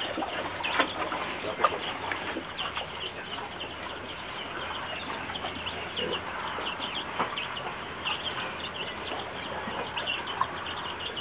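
Poultry clucking and chirping in a farmyard, many short high calls one after another, with a few sharp knocks.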